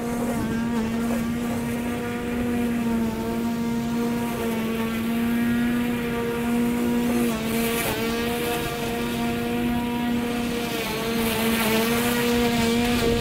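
EGO battery-powered push mower running, its electric blade motor giving a steady whine as it cuts through tall, weedy grass. The pitch sags briefly twice, about seven and eleven seconds in.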